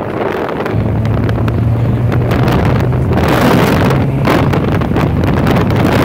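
Inside the cabin of an Acura Integra under way: its JDM B18C1 1.8-litre DOHC VTEC four-cylinder, fitted with an aftermarket intake and cat-back exhaust, runs under load, its note picking up about a second in. Heavy wind buffets the microphone throughout, gusting hardest around the middle.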